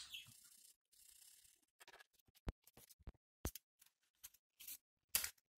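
Faint, irregular short clicks and taps, about a dozen of them starting about two seconds in.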